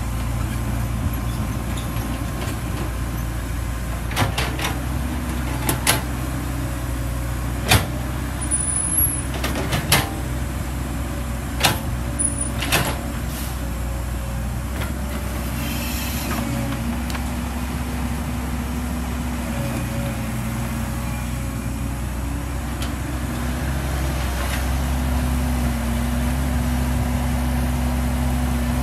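Caterpillar E120B excavator's diesel engine running steadily as it digs and dumps mud, with a run of sharp knocks from the bucket and arm in the middle stretch. The engine note picks up a little near the end.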